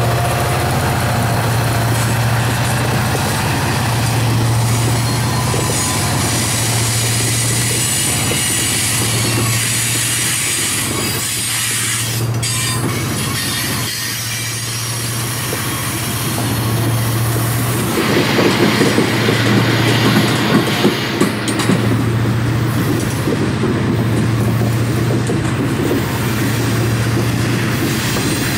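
Ore cars rolling past on steel rails: a steady rumble of wheels with a rhythmic low clack and a thin high wheel squeal. The rattle and clatter grow louder about two-thirds of the way through, with a few sharp bangs.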